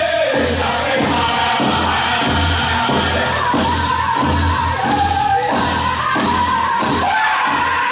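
Powwow drum group singing a chicken dance song: several men's voices hold high, wavering notes over a steady beat on a large powwow drum.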